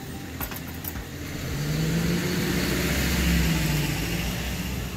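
A car driving past: its engine and tyre noise swells to a peak about three and a half seconds in, then fades. A few light clicks about half a second in.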